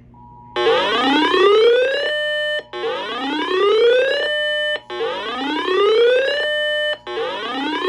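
Electronic siren-style alert sound from an emergency alert broadcast: four rising wails about two seconds apart, each climbing in pitch, holding briefly, then cutting off sharply. It signals the start of an Emergency Alert System warning.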